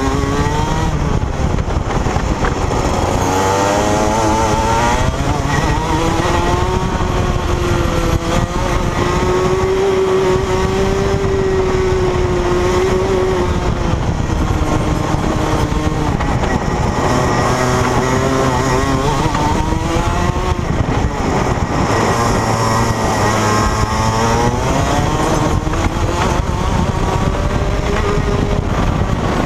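Rotax Max 125cc two-stroke kart engine running at racing speed. Its pitch climbs and drops again and again, and it is held high and steady for several seconds about a third of the way in.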